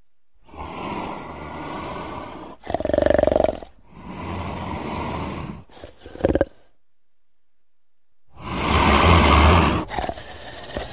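Leopard growling and snarling in about six harsh bursts of a second or two, with silent pauses between; the loudest come about three seconds in and near the end.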